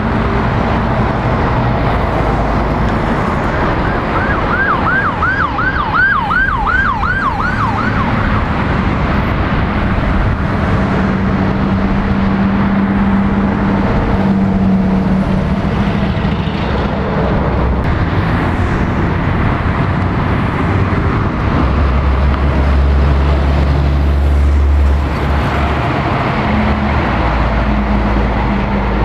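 Heavy road traffic passing, lorries and cars, with a siren yelping in fast rising-and-falling sweeps, about two and a half a second, for about four seconds a few seconds in. Later a heavy truck's diesel engine drones low and close before dropping away.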